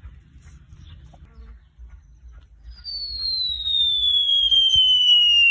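A descending whistle sound effect, like a falling bomb in a cartoon, starting about halfway through and sliding steadily down in pitch, with a fainter tone rising beneath it. Before it there is only faint low rumble.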